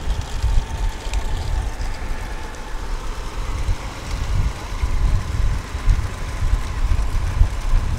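Low, gusting rumble of a moving vehicle and wind on the microphone, rising and falling in level, with a faint steady tone held over it.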